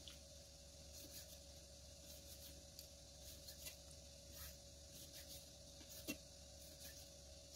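Faint, irregular taps and light scrapes of a kitchen knife slicing raw pork liver against a wooden chopping block, the sharpest tap about six seconds in.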